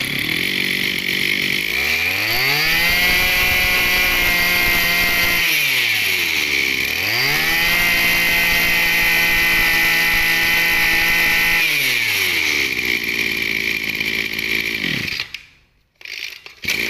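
Maruyama 26cc two-stroke brush cutter engine test-running: it idles, is revved up to full throttle and held for a few seconds, drops back to idle, is revved and held again, then returns to idle and is switched off near the end.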